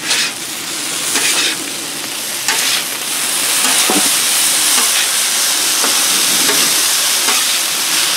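Wet diced potatoes sizzling in oil on a hot Blackstone flat-top griddle, with a spatula scraping and clicking on the griddle top as they are turned. The sizzle grows louder about three seconds in.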